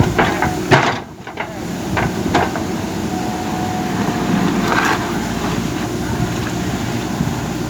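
JCB backhoe loader's diesel engine running under load as it digs soil, with scattered knocks and scrapes and a brief drop in engine noise about a second in.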